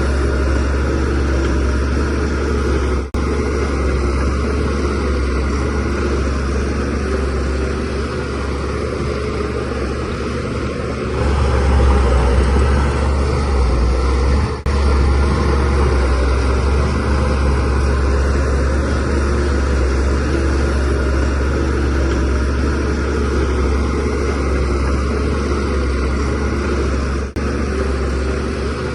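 DH17C3 bulldozer's diesel engine running under load with a steady low drone, working harder and louder from a little before the middle. Three very short breaks interrupt the sound.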